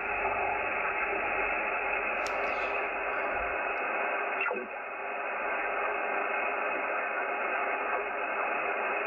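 JRC NRD-545 receiver's loudspeaker giving steady shortwave band hiss through a narrow filter on an empty, flat band. There is a click about two seconds in, and a whistle falls quickly in pitch about halfway through.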